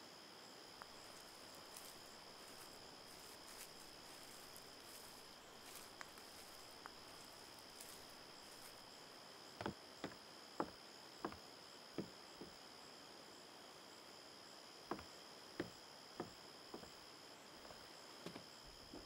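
Steady high-pitched chirring of insects, like a cricket chorus. From about halfway through come about a dozen sharp footsteps of heeled sandals on wooden porch steps and deck boards, in two runs.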